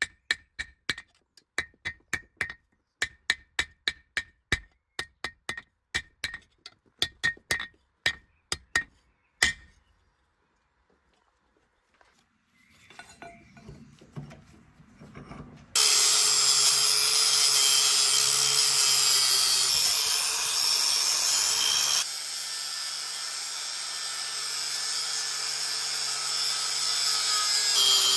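Hammer blows on hot steel over an anvil, about two to three ringing strikes a second, stopping after roughly nine seconds. After a pause and a few light clicks, an electric power tool starts and runs steadily, dropping in loudness about two-thirds of the way through.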